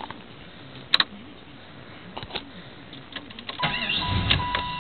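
1994 Jeep Grand Cherokee's 5.2 L (318) V8 cranking on the starter near the end and catching only briefly, with a steady high tone sounding alongside. This is a hard-start fault in humid, changing weather: the engine runs for about a second and dies. The owner later traces it to a gunked-up throttle body and a leaking intake manifold gasket.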